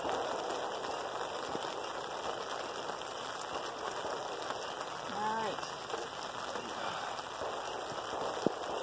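Steady patter of light rain on the canopy overhead, with a faint voice briefly about five seconds in.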